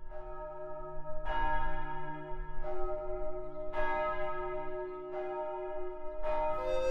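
Church bell tolling with about six evenly spaced strikes, one every second and a bit. Each strike rings on into the next.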